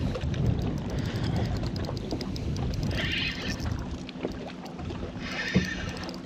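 Wind buffeting the microphone over low water noise around a small boat, easing after about four seconds. Two short higher whirring sounds come about three and five seconds in, with a sharp tick just after the second.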